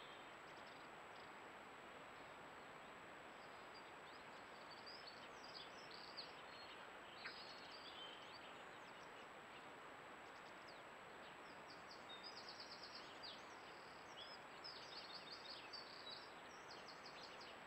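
Faint distant small-bird song and chirps over the trail camera's steady hiss, with bursts of rapid trills in the second half. A thin steady high whine from the camera runs underneath.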